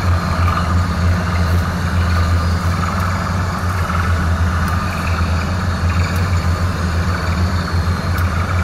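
Large Sullair diesel portable air compressors running: a steady, unbroken low engine drone.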